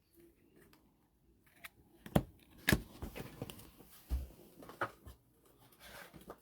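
A string of small, irregular clicks and light rustles from handling trading cards and their packaging.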